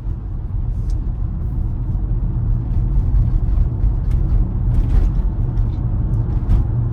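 Steady low road and tyre rumble inside the cabin of a Tesla Model Y electric car driving along, with a few faint ticks.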